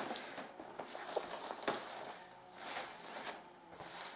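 Plastic wrapping film crinkling and rustling in irregular bursts as it is pulled off a boxed collector's set.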